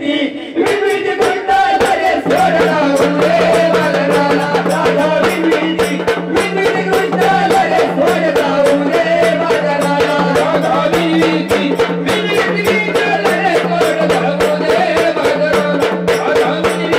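Marathi Waghya folk music played by a troupe: a fast, even percussion beat with a jingling rattle, a steady drone that comes in about two seconds in, and a wavering melody above.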